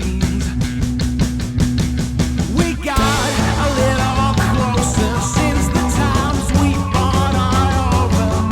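Background rock music with a fast, steady drum beat, guitar and a singing voice; a new, fuller section comes in about three seconds in.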